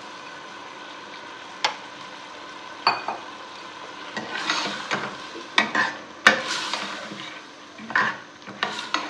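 A steel ladle stirs soaked chana dal frying in oil in a stainless steel pot: the lentils scrape and sizzle, and the ladle clinks sharply against the pot's side several times, loudest about six seconds in. A steady hum runs underneath.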